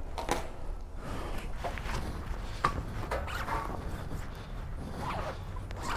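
Rustling of jacket fabric and light handling knocks, with a few faint voices in the background.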